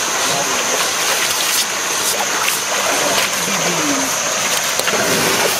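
Water splashing as people scrub and throw water over elephants bathing in a shallow river, over the steady rush of the flowing stream.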